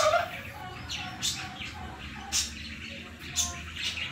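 Needle and embroidery thread pulled through plastic canvas mesh, making short scratchy rasps about once a second as each stitch is drawn. Faint chirps sound in the background.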